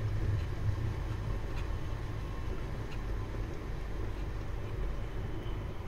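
A steady low hum under a faint even hiss, with a few faint light ticks.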